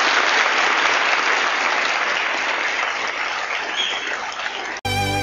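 Audience applauding steadily, cut off suddenly near the end by the start of instrumental music.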